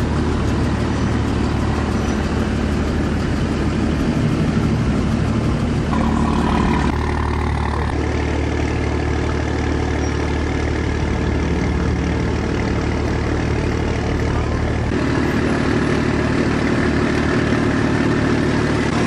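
Truck engine idling steadily, its low note shifting slightly about six seconds in and again around fifteen seconds.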